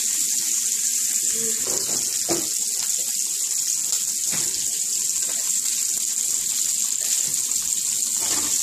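Steady high hiss of pancake batter frying on a hot griddle.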